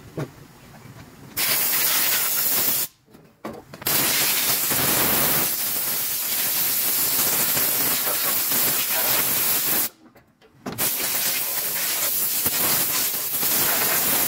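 Compressed-air siphon spray gun hissing as it blasts a mist of cleaning fluid onto a transmission oil pan. It comes in three blasts: a short one about a second and a half in, then two long ones with a brief pause between them.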